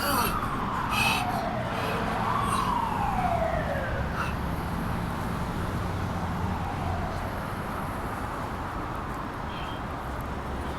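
Emergency vehicle siren wailing, its pitch sweeping slowly down again and again and fading out after a few seconds, over a steady low rumble. A few short, sharp noises sound in the first three seconds.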